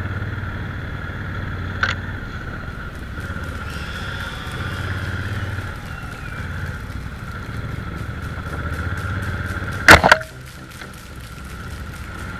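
Adventure motorcycle engine running while riding a rough gravel track, its throb rising and easing with the throttle. A sharp click comes about two seconds in, and a loud double knock of a jolt or impact about ten seconds in.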